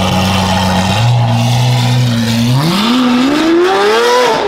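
Lamborghini Aventador's V12 engine pulling away: a steady low engine note, then from about halfway the pitch climbs smoothly as the car accelerates, dropping sharply near the end at a gear change.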